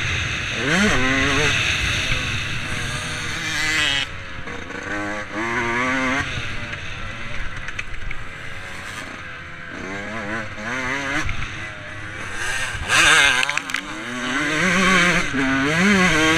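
Motocross dirt bike engine revving up and backing off again and again as it is ridden around a track, over steady wind noise on the helmet.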